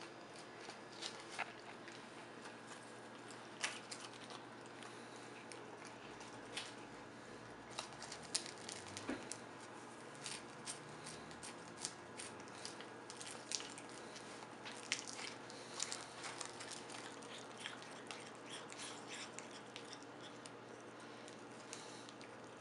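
A cat chewing and biting on a piece of seaweed: irregular small crisp clicks and crackles, over a faint steady hum.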